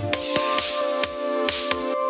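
Electronic background music with a steady beat: drum hits over held synth chords.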